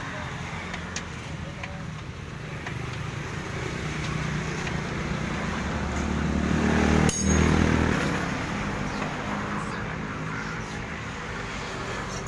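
A motor vehicle engine running and passing close by. It grows louder to a peak about seven seconds in, with a sharp click at the loudest point, then fades. Faint voices are heard under it.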